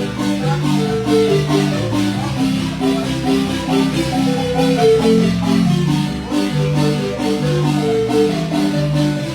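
Instrumental son music: quick, repeated pitched notes over a bass line that steps from note to note.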